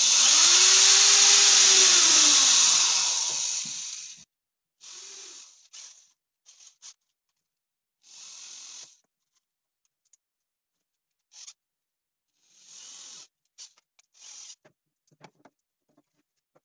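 Cordless drill-driver driving a screw into a pre-drilled joint of a wooden frame. The motor runs loudly for about four seconds, its pitch rising and then dropping as the screw draws in, followed by several short, much quieter noises.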